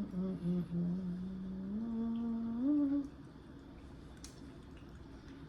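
A person humming a long closed-mouth "mmm" while eating, held steady and rising in pitch near its end, the sound of someone savouring the food. A few faint clicks follow after the hum stops.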